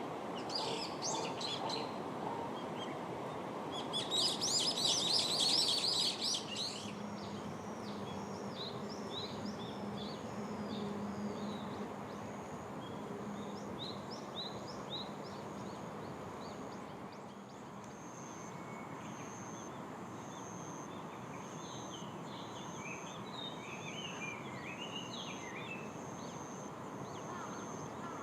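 Wild birds calling and chirping over a steady background hiss, with a loud burst of rapid chirps about four seconds in, then a run of short falling high notes. In the second half a high, evenly pulsed note repeats over scattered chirps.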